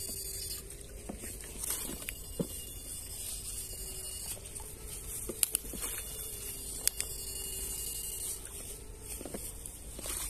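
Backpack electrofishing rig working a shallow ditch: a steady high electrical whine and light water patter as the pole electrodes sweep through the water, with two sharp cracks about five and a half and seven seconds in.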